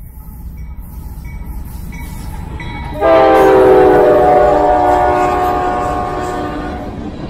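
Freight train rumbling as it approaches, then about three seconds in the lead diesel locomotive, a Norfolk Southern AC44C6M, sounds its air horn in one long, loud blast as it passes close by, fading over the last couple of seconds.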